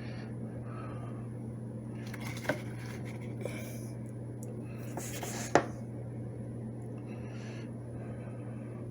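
Ground coffee being scooped into a paper filter in a drip coffee maker's basket: soft rustling and scraping with two sharp clicks of the scoop, about two and a half and five and a half seconds in, over a steady low hum.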